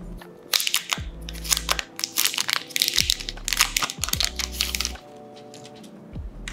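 Thin plastic protective film crinkling and crackling as it is handled and peeled off the back of a smartphone, dying away about five seconds in. Background music with a steady bass beat plays underneath.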